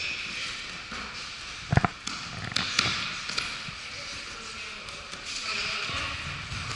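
A body thuds onto gym mats once, about two seconds in, as one grappler takes the other to the ground, with a few lighter knocks and scuffs on the mats after it.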